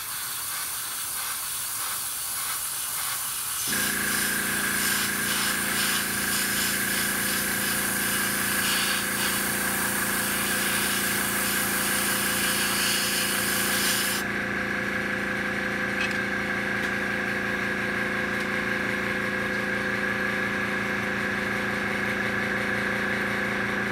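PS-290 airbrush spraying, a steady hiss of air and paint. About four seconds in an airbrush compressor's motor starts and runs with a steady hum. The spray hiss stops suddenly about fourteen seconds in while the compressor keeps running.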